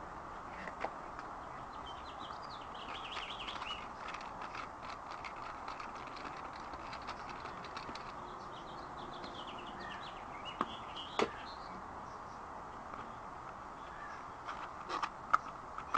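Birds chirping over steady background noise, with a few sharp clicks and knocks, the loudest about eleven seconds in and near the end.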